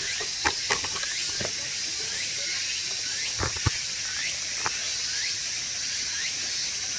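Steady high hiss of outdoor ambience with a short chirp repeating about twice a second, broken by a few sharp knocks, the loudest about half a second and three and a half seconds in.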